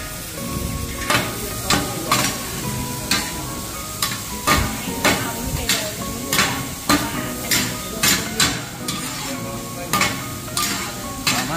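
Two metal spatulas scraping and clanking on a large flat frying pan as mussel pancake and bean sprouts are stir-fried in sizzling oil. The scrapes come unevenly, a little more than one a second, over a steady sizzle.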